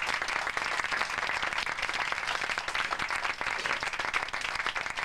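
Live audience applauding: many people clapping steadily at the end of a comedy sketch.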